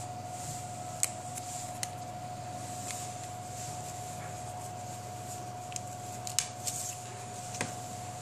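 An HTC Desire 500 smartphone being lifted out of its plastic packaging tray, handled and set down: soft plastic rustling with a few light clicks and taps scattered through, over a steady faint background hum.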